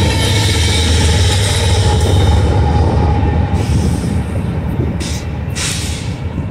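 Freight train rolling past close by, steel wheels running on the rails over a low diesel locomotive rumble. From about halfway through, the sound slowly fades as the train pulls away.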